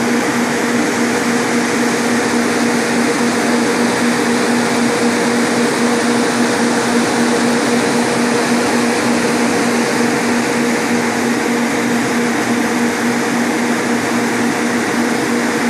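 Three electric radiator fans running steadily, a constant rush of air with a steady hum.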